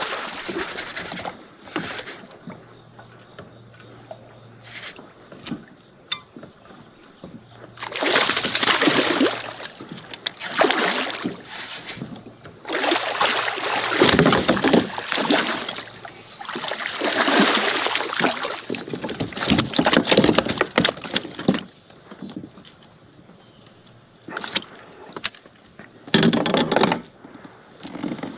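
Water splashing as a smallmouth bass hits a topwater lure, then thrashes and leaps at the surface beside a kayak while being reeled in. There is a splash at the start, then repeated bursts of splashing from about a third of the way in, with a last one near the end.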